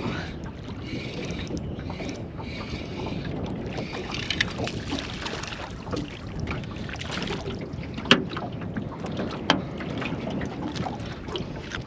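Wind buffeting the microphone over lapping water, with a few sharp knocks in the second half, the loudest about eight seconds in.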